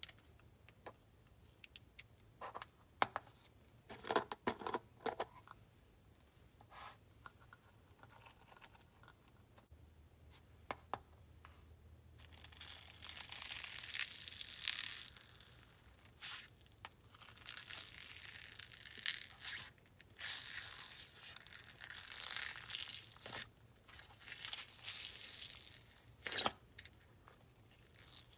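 Slime being handled and worked by hand: scattered clicks and taps in the first dozen seconds, then repeated spells of hiss-like noise, each a second or two long, as the slime is mixed and stretched.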